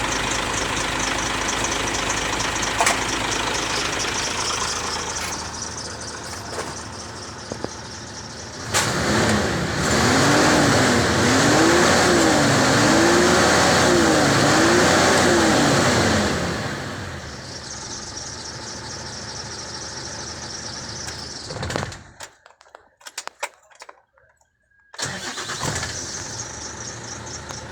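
Isuzu 6HK1 inline-six diesel engine being cranked by its starter: a steady engine sound, then about nine seconds in a louder spell of some seven seconds whose pitch rises and falls over and over, as the engine turns without catching. The engine will not start. The sound drops out briefly near the end.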